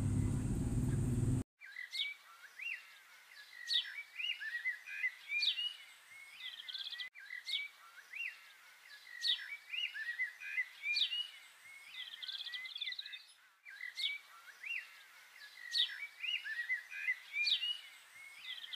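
Birds chirping and singing in quick, high, whistled notes with no background rumble beneath them. The birdsong starts at a sudden cut about a second and a half in, and the same stretch appears to repeat about every six seconds.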